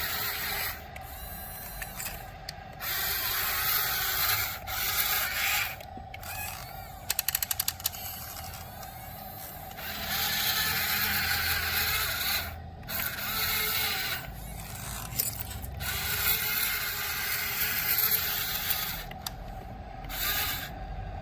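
Small electric gear motors of a radio-controlled toy excavator whirring in spurts as it digs and loads, starting and stopping every second or two. A quick run of clicks comes about seven seconds in.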